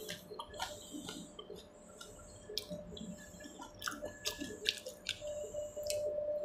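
Pani puri being dipped into a bowl of spiced water and eaten: small splashes and drips of the water and a scattered run of short, sharp crunchy clicks from the puri shells, over a faint steady tone.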